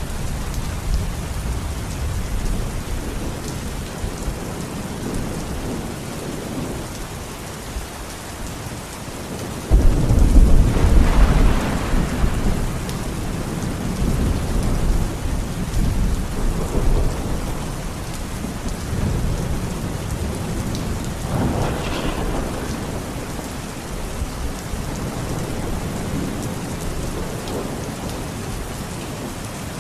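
Steady rain falling in a thunderstorm. About ten seconds in, a sudden loud thunderclap breaks into a low rolling rumble that fades over several seconds, and a second roll of thunder comes near the twenty-second mark.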